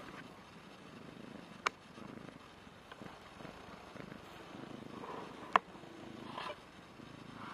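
A domestic cat purring, a soft low rumble, close up. Two sharp clicks cut across it, one a little under two seconds in and a louder one past the five-second mark.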